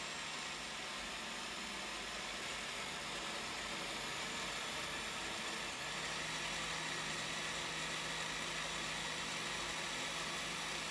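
SilverCrest countertop blender running steadily, blending a thick semolina-and-flour bagrir batter; its motor hum gets slightly stronger about six seconds in.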